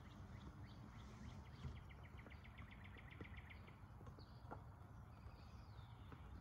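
Faint outdoor ambience: a bird trills rapidly for about two seconds near the start, then gives scattered chirps and a falling call, over a low steady hum. A few soft taps come from a soccer ball being rolled and touched by the feet on grass.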